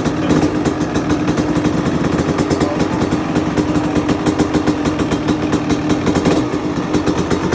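Kawasaki KX250 motocross bike engine running steadily, its first run after a rebuild.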